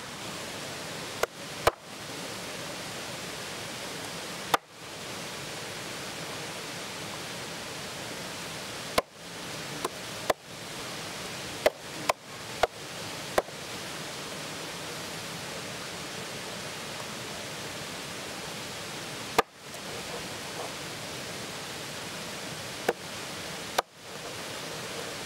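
A large knife chopping through whole fish onto a wooden cutting board: about a dozen sharp knocks at uneven intervals, bunched in the first half, over the steady rush of a waterfall.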